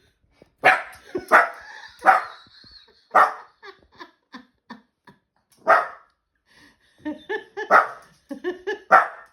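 Pet dog barking at a washing machine she dislikes: about seven sharp, loud barks spaced irregularly, with a quicker run of shorter, quieter barks near the end.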